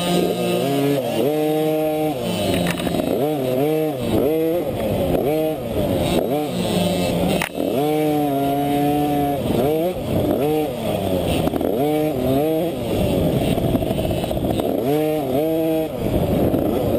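KTM 50 dirt bike's small two-stroke single-cylinder engine revving up and easing off over and over as the throttle is worked along a twisty race trail.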